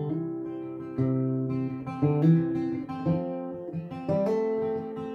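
Acoustic guitar with a capo strummed solo, chords struck about once a second and left ringing between strokes.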